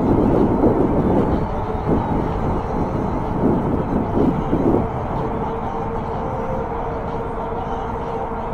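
Wind rushing over the microphone and road rumble on a moving e-bike, with traffic noise. The wind gusts strongly at first, and a steady whine comes in about halfway through.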